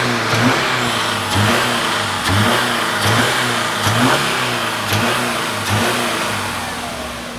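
Subaru Forester's flat-four engine running, with a steady low tone and a pulse that repeats about once a second. It grows gradually quieter toward the end.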